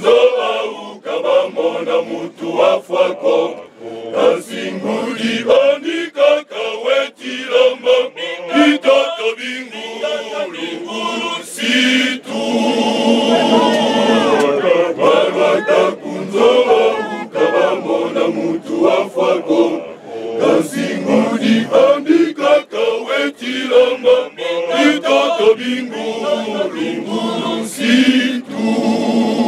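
Men's choir singing together in chorus.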